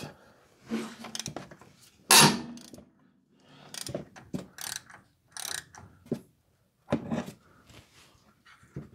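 Hand socket ratchet clicking in short irregular bursts as it backs the top nut off a front shock absorber's stud, the stud held by a combination wrench; the loudest burst comes about two seconds in.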